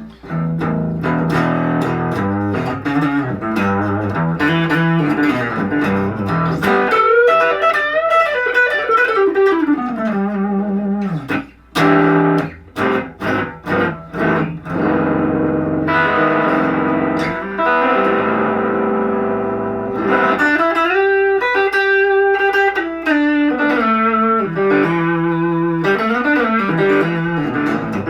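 Guild Aristocrat HH electric guitar on its neck pickup, played through a Line 6 amp with a little gain: deep, warm chords and single-note lines, with a run of short choppy stabs about halfway through. The guitar's tone knob is rolled down, darkening the sound.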